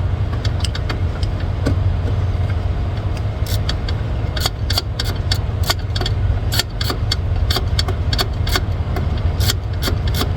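Irregular sharp metal clicks and clinks of a hand tool tightening a truck's clutch safety switch, growing busier after the first few seconds. Under them runs a steady low engine rumble.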